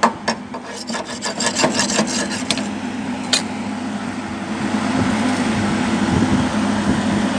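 Rapid scraping and tapping strokes on welded steel plate, slag being cleaned off a stick-weld bead, giving way after about three seconds to a steady low hum.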